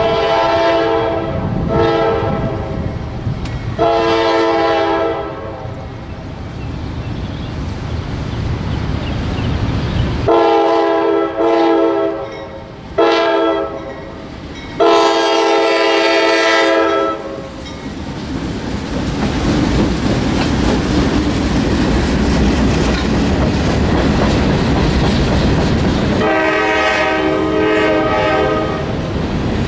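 CSX freight train passing a grade crossing: the diesel locomotive's multi-chime air horn sounds in blasts, three in the first five seconds, three more between about ten and seventeen seconds with the last the longest, and one more near the end. Between blasts the locomotives rumble past, and after them the freight cars roll by with a steady clickety-clack of wheels over the rail joints.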